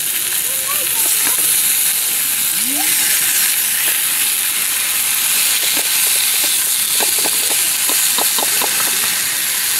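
Pork slices and sliced new onions sizzling steadily in a small frying pan as they are stir-fried with chopsticks, with a quick run of light clicks about seven to nine seconds in.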